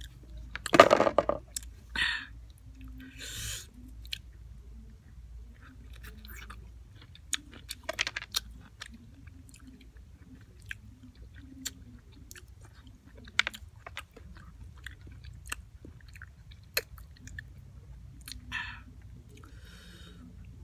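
A person chewing raw calamondins, whole small citrus fruit, close to the microphone: irregular small clicks and wet smacks of the mouth. About a second in there is one short, loud vocal noise, the loudest sound here.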